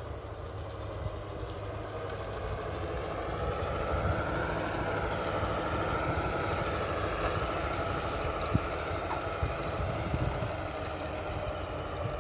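Large-scale model diesel locomotive hauling freight wagons past, its motor giving a steady, slightly wavering whine that grows louder as it nears, under a low rumble.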